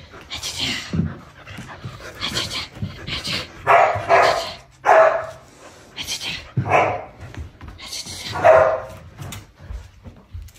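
Samoyed dogs barking during play over a rope toy: several short, loud barks at irregular intervals, the loudest bunched near the middle and again near the end.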